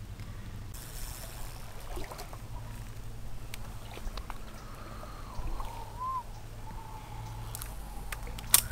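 Small stream trickling faintly over a low rumble, with scattered handling clicks and rustles. A faint, thin wavering tone comes in about halfway through, and a sharp click sounds near the end.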